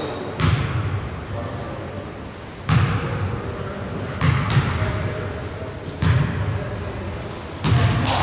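A basketball bouncing on a hardwood gym floor in a few sharp knocks that echo around the hall, with short high squeaks of sneakers on the court between them.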